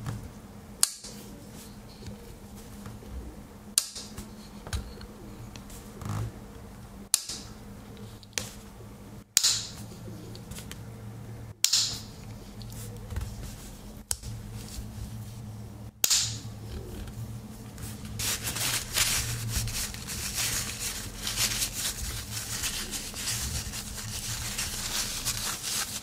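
Tools of a Victorinox Tinker Swiss Army knife, freshly oiled, snapping open and shut against their backsprings: a sharp click every two to three seconds, seven in all. In the last third a cloth rubbing over the knife makes a fast, scratchy rustle.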